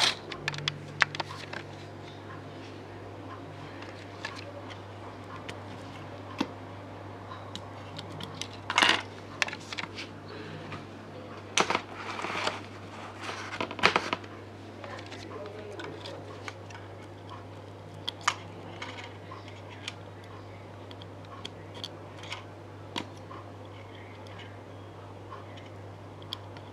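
Scattered clicks and short rattles of small electronic parts and wires being handled, over a steady low electrical hum. A low tone sounds briefly near the start.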